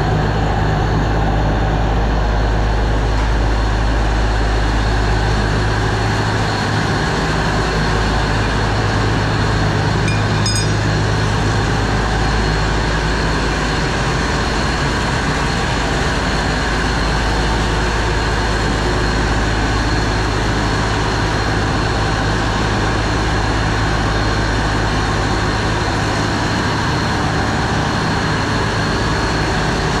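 A vehicle engine running steadily, a constant low drone with no change in speed.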